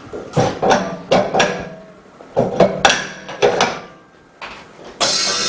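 A series of knocks and clatters as the laminated phone screen and mold are loaded into a bubble remover machine and its door is shut. About five seconds in, the bubble remover machine starts running with a steady, loud hiss and hum.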